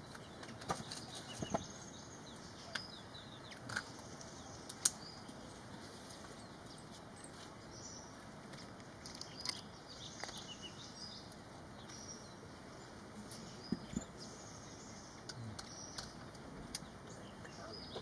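Small birds chirping: many short, high calls scattered irregularly, with a few sharp clicks, over a faint steady background.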